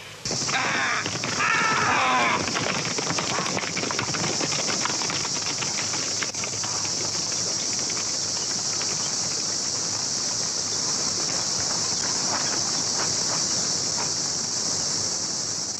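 Steady high-pitched drone of an insect chorus on an old film soundtrack, with a brief curving call about a second or two in.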